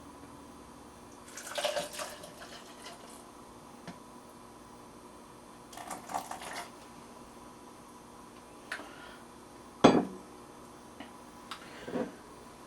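Kitchenware being handled while balsamic vinegar is measured and poured into a salad dressing shaker. There are two short spells of clattering and handling noise, then a sharp knock, the loudest sound, of something set down just under ten seconds in, and a smaller knock near the end.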